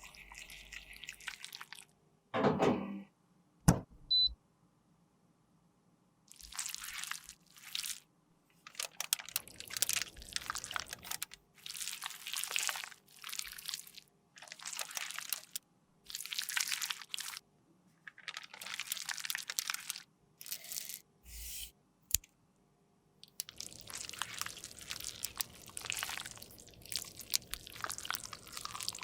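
Short bursts of scraping and crunching as makeup product is worked with a tool, cut together with silent gaps between them. A dull thud and a sharp click come near the start.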